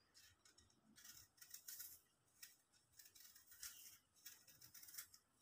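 Faint scraping of a small kitchen knife paring the skin off an apple, in short, irregular strokes.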